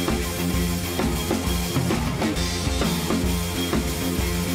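Background music: a rock track with a steady drum-kit beat.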